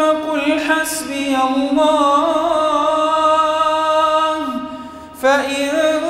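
An imam's voice chanting Quran recitation in a slow, melodic line of long held notes. About five seconds in it tails off for a breath, then takes up the next phrase.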